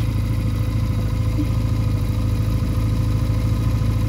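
Honda Rebel cruiser motorcycle's parallel-twin engine idling steadily while the bike stands still.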